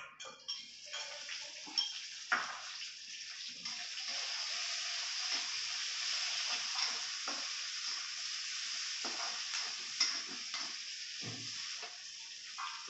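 Sliced chillies, shallots and garlic sizzling steadily in a hot wok while a steel spatula scrapes and knocks against the wok as they are stir-fried.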